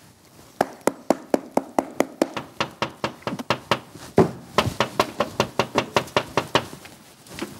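Rapid knocking, about five sharp knocks a second in several runs with short breaks, the loudest knock about four seconds in.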